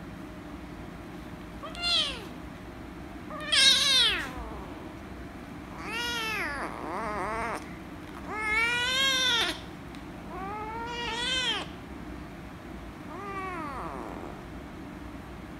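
Kitten meowing loudly and repeatedly while being petted: about seven meows, each rising then falling in pitch, the loudest about four seconds in. The uploader takes the meowing for anger at being petted.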